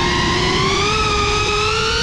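Quadcopter drone's electric motors and propellers whining, the pitch rising slowly as the throttle goes up and the drone climbs, over a rough rushing noise of propeller wash and wind on the onboard microphone.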